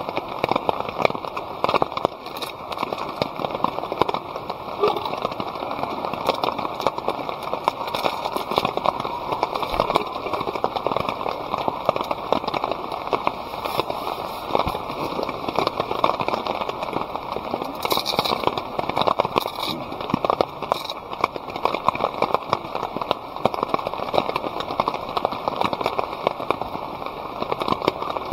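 Wood fire crackling steadily, a dense run of small pops.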